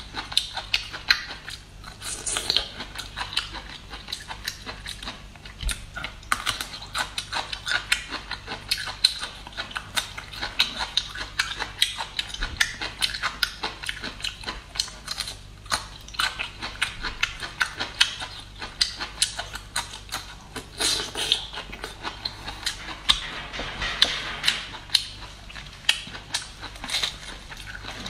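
Close-miked chewing of crisp hand-peeled bamboo shoots: a dense, irregular run of crunches and mouth clicks.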